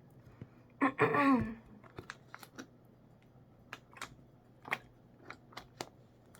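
A short murmur of a man's voice about a second in, then about a dozen sharp, scattered clicks.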